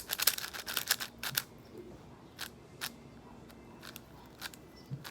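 Plastic clicks of an MGC 6x6 speed cube being turned by hand: a quick flurry of turns in the first second and a half, then a few single clicks spaced out.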